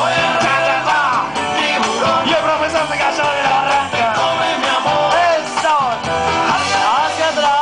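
Upbeat dance music with a lead singer over a steady bass line, playing continuously for the crowd to dance to.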